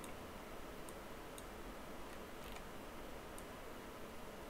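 Faint computer mouse clicks, about five at irregular intervals, over low room hiss.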